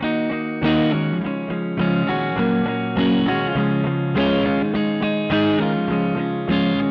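Music: a distorted electric guitar playing chords, with a new chord struck about every half second.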